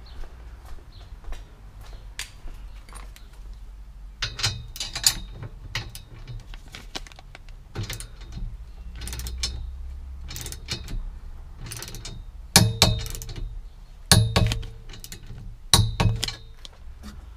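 Socket ratchet wrench clicking in bursts of quick strokes as a roll-cage mounting bolt is tightened, the loudest bursts near the end.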